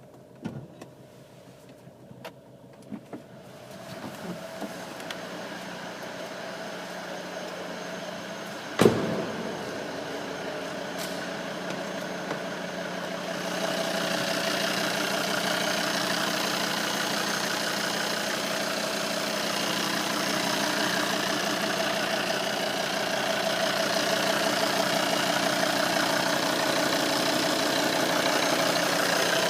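Volvo C30 D5's five-cylinder diesel running with a steady droning tone, the noise the owner reports as a problem. A few light clicks come in the first seconds and a single sharp thump about nine seconds in; the drone grows louder at about fourteen seconds.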